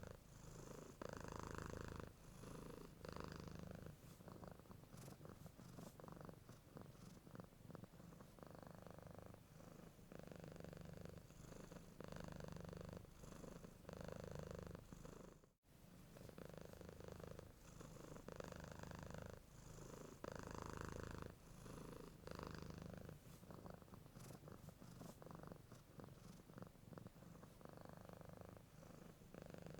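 Domestic cat purring steadily and softly, swelling and easing with each breath about once a second. The sound cuts out for an instant about halfway through.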